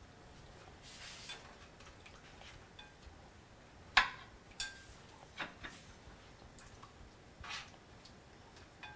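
A plastic slotted spatula stirring sauce and onions in a skillet: soft scrapes and a few light taps against the pan, with one sharp knock about four seconds in.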